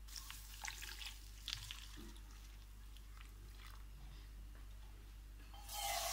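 A few faint clicks of handling, then, near the end, water rushing as it is poured into a cooking pot.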